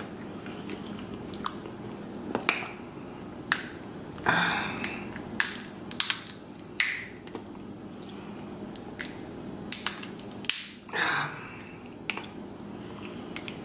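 Close-up eating of a seafood boil: irregular sharp lip-smacking clicks and chewing, with a couple of longer crunching or slurping noises about four and eleven seconds in.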